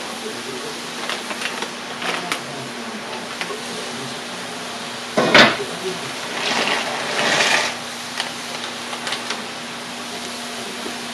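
Dry rigatoni poured from a bag into a pot of boiling water, heard as two rustling pours about six to eight seconds in. Shortly before, there is a single sharp clank, with lighter clicks earlier. A steady hum of house fans runs underneath.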